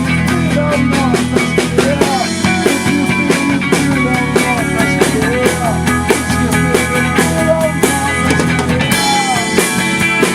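Rock band playing: a drum kit keeps a steady beat under electric guitars, and a lead line bends and slides in pitch over it.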